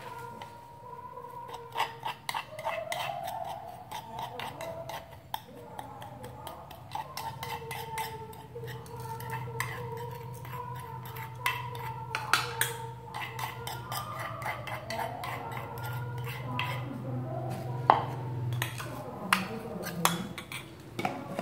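Metal spoon scraping and clinking against a wooden mortar and a bowl, scooping out pounded chilli salt in irregular scrapes and knocks, with one sharper knock near the end. A low steady hum runs underneath.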